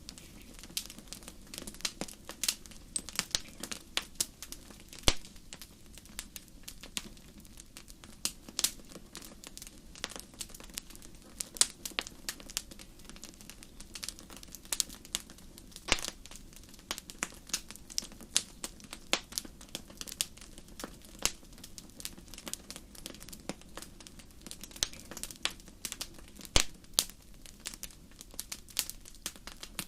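Wood fire crackling steadily, with irregular sharp pops and snaps over a low hiss, a few of them loud.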